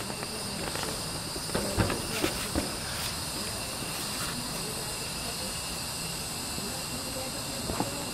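Steady chirring of night insects, with a few sharp knocks about two seconds in and another near the end.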